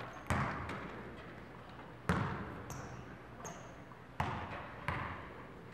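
Basketball bouncing on a court floor: four loud bounces at uneven spacing, each with a short echo, and a few brief high squeaks in between.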